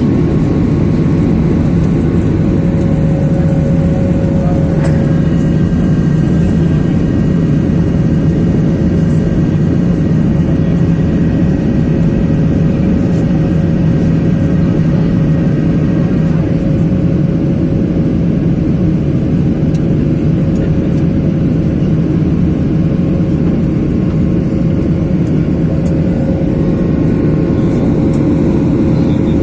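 Steady cabin noise of a jet airliner in its climb: an even roar of engines and rushing air with a steady hum running through it, and a few faint higher tones for a stretch in the middle.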